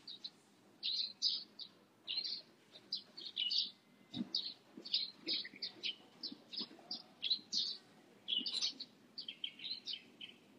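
A busy morning chorus of many small birds, short high chirps in quick runs one after another. A soft low thump about four seconds in.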